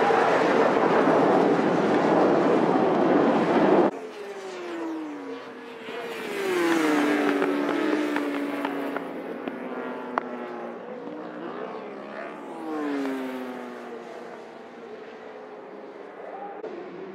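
Racing superbike engines. For the first four seconds many bikes run together at full throttle in a dense wall of noise. This cuts off suddenly, and then single bikes pass one after another, each engine note falling in pitch as it goes by.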